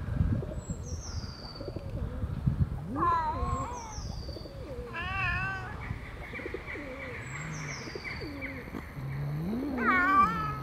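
A cat yowling: drawn-out wavering calls about three seconds in and again about five seconds in, then a low rising moan that swells into another yowl near the end.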